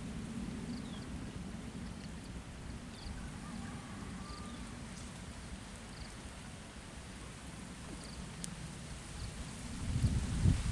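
Strong wind buffeting the microphone as a steady low rumble, with short high chirps now and then. The rumble grows louder in gusts near the end.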